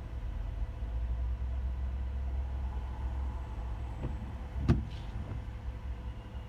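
Steady low rumble of a car driving, with one sharp knock a little past the middle and two fainter ticks just before and after it.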